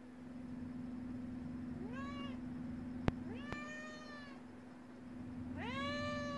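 Domestic cat meowing three times, the first call short and the later two longer, each rising in pitch as it starts; the cat is crying at a dog to get it up and into its crate. A sharp click sounds once about three seconds in.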